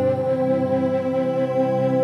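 Background music with long held notes and steady chords.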